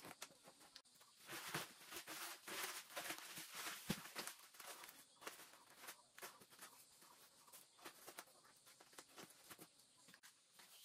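Faint rustling and crinkling of filled woven plastic sacks being handled and tied, loudest between about one and five seconds in, with scattered light clicks and footsteps on a dirt floor.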